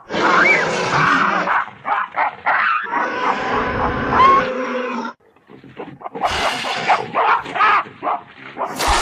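Designed creature calls for an extinct giant gelada (Theropithecus oswaldi), layered from leopard, baboon and other animal recordings: a run of short, loud animal calls, a brief pause about five seconds in, then more calls.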